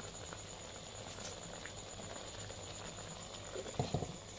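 Quiet, steady sizzle of squid and holy basil leaves frying in a pan, with a few short knocks of the spatula against the pan near the end.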